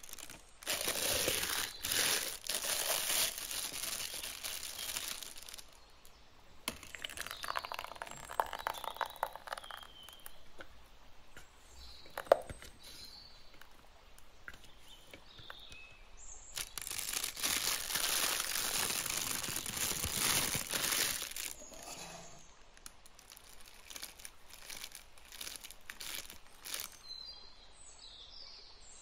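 Plastic piping bag crinkling and rustling as it is handled, in two long stretches, with a single sharp tap about twelve seconds in.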